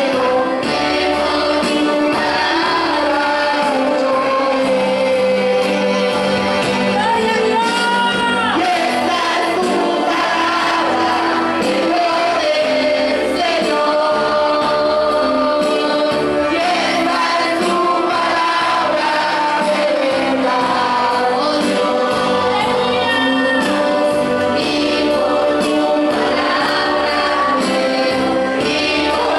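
Christian praise song: voices singing a melody over instrumental accompaniment with a moving bass line, continuous and steady in level.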